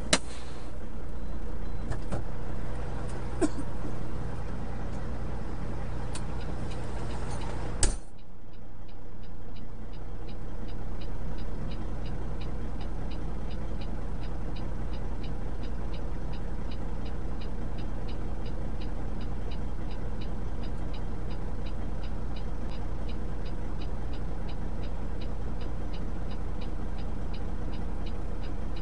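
Steady low hum of an idling vehicle engine, with a few clicks and a sharp knock about eight seconds in. After that a regular fast ticking sets in over the hum.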